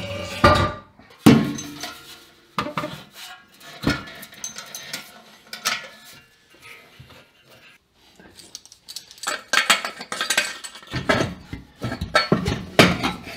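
Irregular metallic clanks, knocks and scrapes of steel exhaust pipe and a stainless silencer being handled and fitted under a car, with a busier run of clattering near the end.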